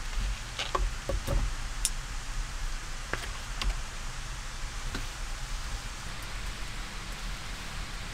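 Light clicks and taps of a kitchen knife being set down on a wooden cutting board and chopsticks being handled, a few scattered knocks in the first four seconds, over a steady background hiss.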